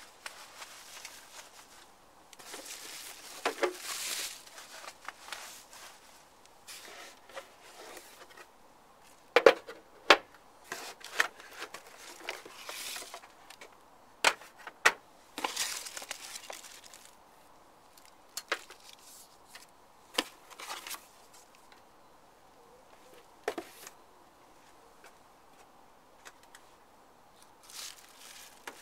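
Bubble wrap and plastic packaging rustling and crinkling as alarm-box parts are unpacked, with scattered sharp clicks and knocks of hard plastic covers being handled and set down; the loudest knocks come about nine and ten seconds in.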